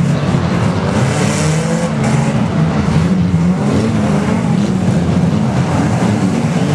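Engines of a pack of banger racing cars running and revving together on the track, many engine notes overlapping and rising and falling at once, loud and continuous.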